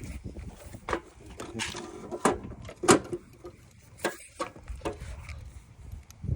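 Scattered knocks and clatter of hard objects being handled, about five sharp hits spread out, the loudest about three seconds in.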